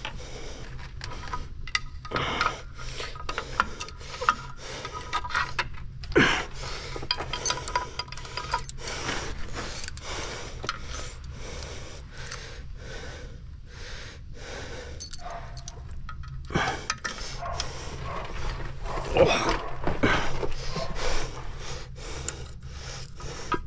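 Metal brake parts being worked by hand on a truck's drum brake: irregular clinks, knocks and scrapes as the brake shoes and springs are wrestled into place without a spring tool. Heavy breathing from the effort and a steady low hum run underneath.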